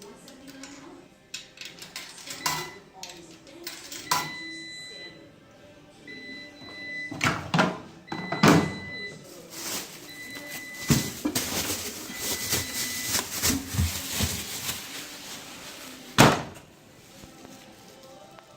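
A commercial washing machine being handled and set going: a run of short, high single-tone electronic beeps from its control panel, mixed with knocks and clunks, and one loud thump near the end.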